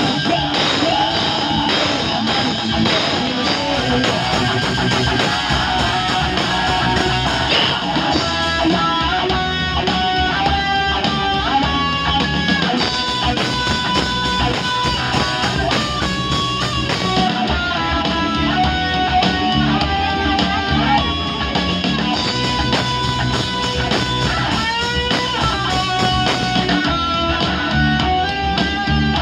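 Live rock band playing loud through a PA, with distorted electric guitars, bass and drums. A held, stepping lead guitar melody comes in about eight seconds in.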